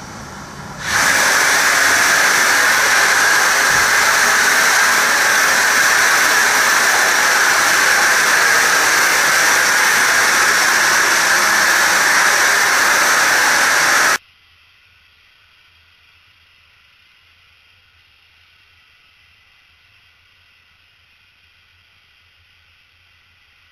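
Air-driven polyurea cartridge spray gun spraying bed liner: a loud, steady hiss of compressed air and atomised coating. It comes in quieter for about a second, then runs at full strength and cuts off suddenly about fourteen seconds in, leaving only a faint steady hiss.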